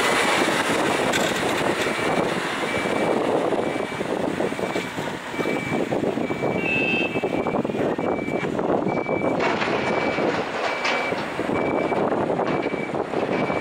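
Mercedes-Benz Arocs 4448 tipper truck driving off over quarry gravel, its running and tyre crunch making a steady coarse noise. From about two seconds in, a reversing alarm beeps about twice a second.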